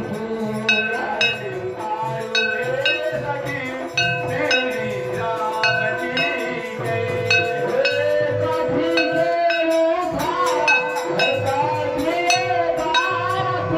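Music with a steady low beat, regular bright metallic chiming strikes and a held melody line.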